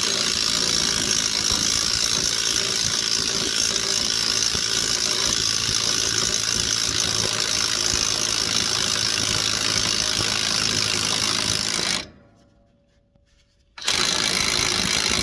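DeWalt impact wrench hammering a motor mount nut onto its bolt in one long, steady run of about 12 seconds, then a short second burst after a brief pause. The bolt's threads were left uncleaned, hence the long run-down.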